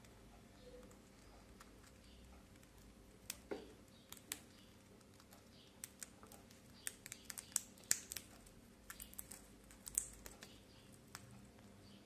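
Quaker parrot (monk parakeet) cracking and husking sunflower seeds with its beak: a scatter of small, sharp clicks and cracks, a few at first and coming thick and irregular in the second half.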